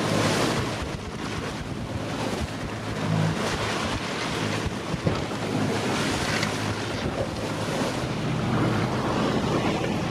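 Sailing yacht pounding through rough seas: waves break and white water rushes along the hull, with wind buffeting the microphone. The rush swells and eases, loudest at the start and again about three seconds in, over a low steady hum.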